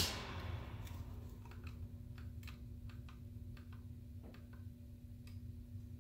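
A sharp click as the Hakko bench fume extractor is switched off, its fan noise dying away over about a second. Then a run of small, irregular plastic clicks and snaps as the overhead display's housing is pressed back together by hand.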